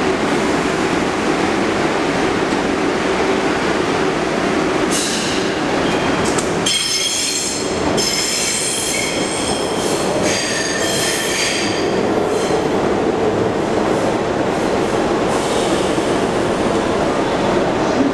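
A three-car subway shuttle train pulls out of the station and runs off under steady rumbling wheel noise. From about five seconds in, the wheels squeal in high ringing tones, on and off for about ten seconds.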